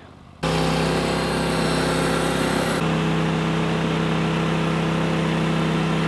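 Norwood portable sawmill's gasoline engine running at a steady speed, coming in abruptly about half a second in, with a slight shift in its tone about three seconds in.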